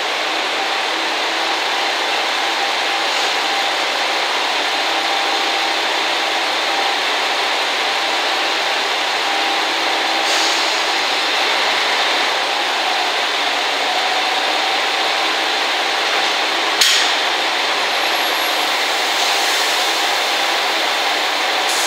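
2000 series and N2000 series diesel railcars running with a steady hum during coupling. There is one sharp clunk about seventeen seconds in as the two trains' couplers engage.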